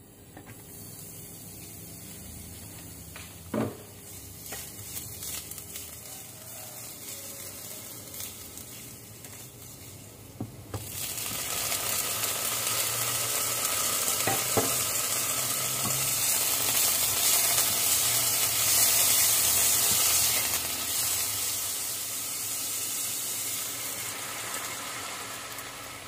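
Garlic and tofu cubes frying in oil in a speckled nonstick wok, a steady sizzle that grows sharply louder about eleven seconds in, with a couple of sharp clicks.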